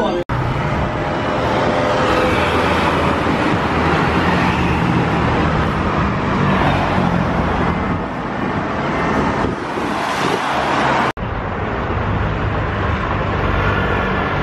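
City street traffic: cars driving past with engines running, a dense steady traffic noise broken by two brief, abrupt drop-outs, just after the start and about eleven seconds in.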